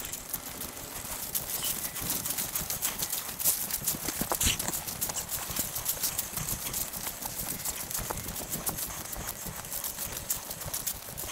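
Footsteps crunching through dry leaves and grass, with the rattle and clank of a deer cart loaded with metal tree stands being pulled over a rough trail: an uneven run of clicks and knocks, loudest around three and a half to four and a half seconds in.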